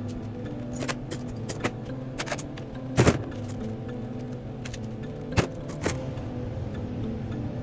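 Background music with held tones, over which metal parts and tools clank and click several times while a 700R4 automatic transmission is being taken apart. The loudest knock comes about three seconds in.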